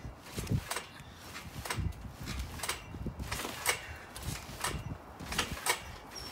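Trampoline bouncing: rhythmic thuds and creaks from the mat with each landing, about one bounce a second.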